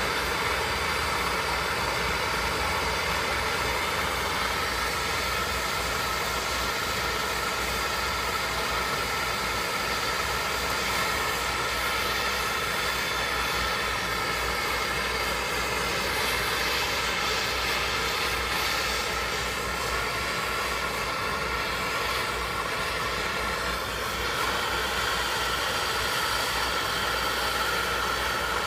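Handheld gas brazing torch burning with a steady hiss while its flame heats a copper pipe joint for brazing.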